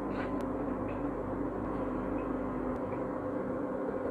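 Steady hum with several held tones, over a few faint ticks of a spoon scooping brown sugar into glass jars of grated coconut.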